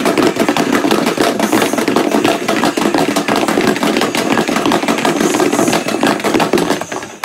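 Small balls rattling inside a plastic storage tub as it is shaken hard to mix them for a draw: a fast, loud, continuous clatter that stops near the end.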